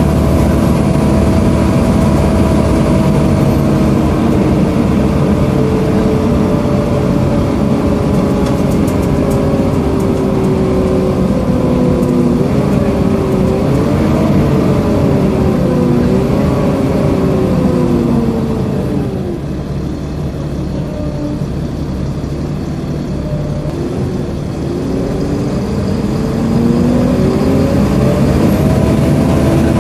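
Volvo B7LA engine and its loud, hoover-like cooling fan heard inside a Wright StreetCar articulated bus: a steady whining drone whose pitch sinks slowly, wavers, drops and quietens about two-thirds through, then rises again near the end.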